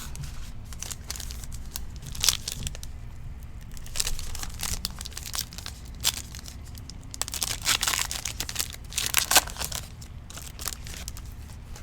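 Trading card pack wrappers being torn open and handled, crinkling and ripping in short, irregular spells that are busiest in the second half.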